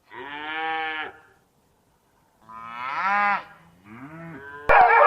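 Cow mooing: two long moos and a quieter third. Near the end a louder, different sound cuts in abruptly.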